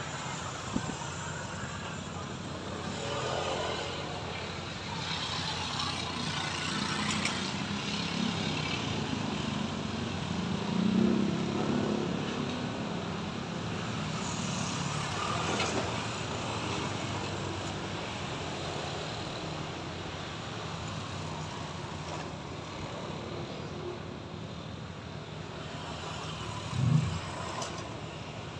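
Steady city background of road traffic, with one vehicle passing more loudly about ten seconds in and a short low thump near the end.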